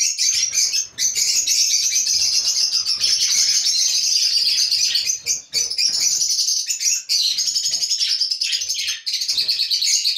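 A flock of budgerigars chattering and warbling, a dense stream of rapid high chirps with a few short breaks.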